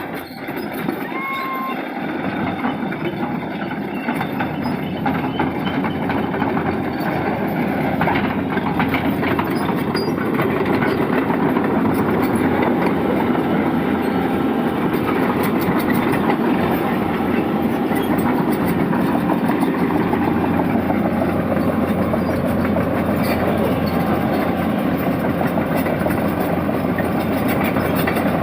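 Heavy diesel machinery running hard, a dense engine rumble with some clatter that grows louder over the first several seconds and then holds steady.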